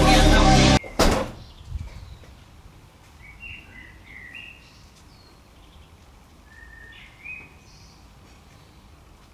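Background music cuts off, then the rear hatch of a Nissan 350Z shuts with one loud thud about a second in. Short bird chirps follow faintly.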